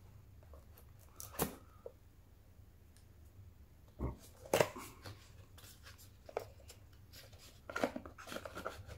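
A product box and its packaging being opened and handled by hand: a few scattered rustles and sharp clicks, the loudest about a second and a half in and around four and a half seconds in, with a cluster near the end.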